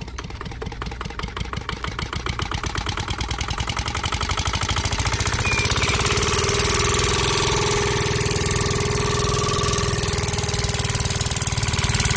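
Small stationary diesel engine starting up: its chugging speeds up and grows louder over the first six seconds or so, then runs steadily, with a steady whine joining.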